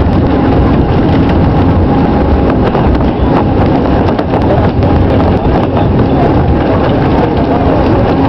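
Mount Washington Cog Railway train running up the mountain: a loud, steady rumble with rapid, irregular clicks and clatter.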